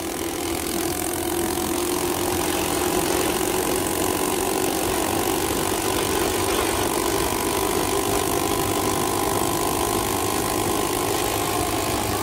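Coleman CT200U minibike's 196cc single-cylinder engine, fitted with a 30 mm PWK carburetor, idling steadily.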